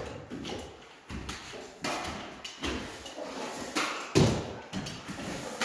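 Irregular knocks and taps of metal drywall stilts stepping on a bare concrete floor.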